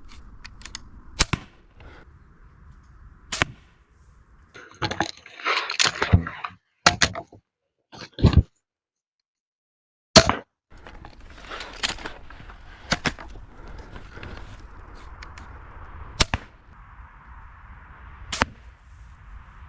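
EK Archery Cobra Siege 300 repeating crossbow firing a string of shots from its magazine, each a sharp snap, spaced one to three seconds apart. A longer, noisier stretch comes about five seconds in.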